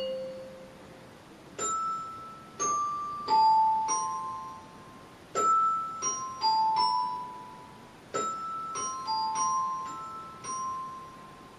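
Electronic keyboard played with a bell-like, glockenspiel-style voice: a slow melody of single high notes in three short phrases, each note struck and left to ring and fade.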